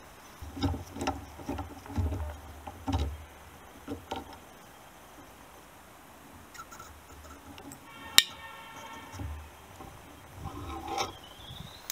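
Handling noise: low thumps and light clicks of the camera being moved and gloved hands working among the frame's wiring. A single sharp click with a brief ringing tone comes about eight seconds in.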